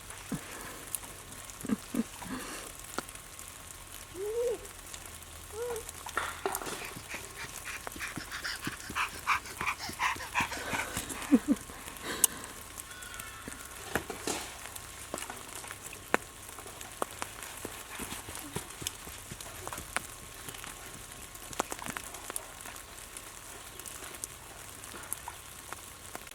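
A dog whining in a series of short high-pitched calls, clustered in the first half, over faint scattered light ticking.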